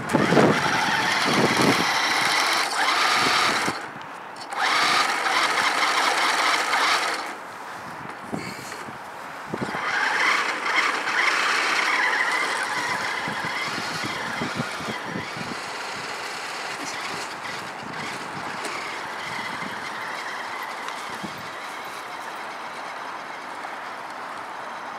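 Small RC model rally truck's electric drive motor and gears whining in three bursts as it drives and spins its wheels in snow, then a steadier run that slowly fades as the truck drives away.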